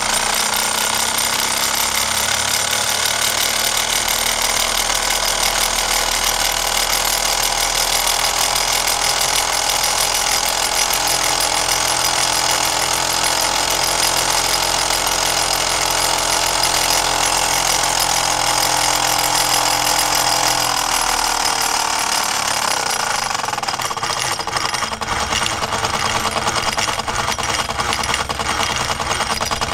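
Wilesco D415 model steam tractor's steam engine running fast under live steam, a rapid mechanical chatter with a rattling vibration that the owner thinks comes from the drive wheel. About twenty seconds in it slows down, and the beat becomes slower and more uneven.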